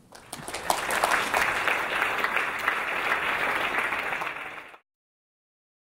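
Audience applauding in a large hall: the clapping swells within the first second, holds steady, then cuts off suddenly about a second before the end, leaving dead silence.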